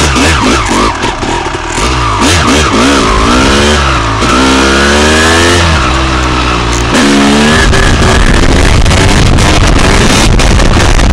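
Honda CR250R single-cylinder two-stroke engine, heard close up from the handlebars, revving up and dropping back several times as the bike accelerates through the gears. About eight seconds in the engine's pitch is lost under a loud, steady rushing of wind on the microphone as the front wheel comes up.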